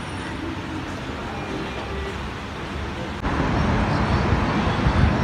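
Steady ambient noise of a metro station concourse, cutting abruptly about three seconds in to louder city street noise with road traffic running.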